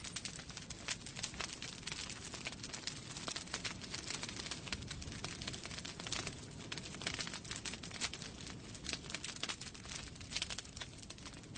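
Wood fire burning in a fireplace, crackling and popping with many small irregular snaps over a soft steady hiss.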